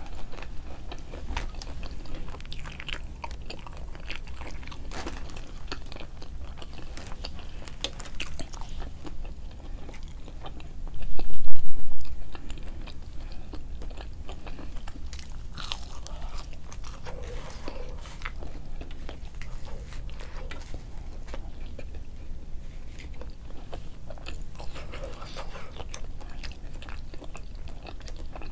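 A person chewing and biting fast food close to the microphone, with wet mouth sounds and small crunches. A loud thump about eleven seconds in, over a steady low hum.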